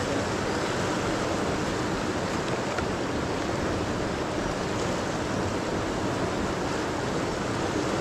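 River water rushing, a steady even noise with no break.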